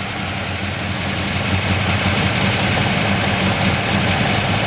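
Ford Ranchero's carbureted Ford V8 idling steadily, cold and running on the choke.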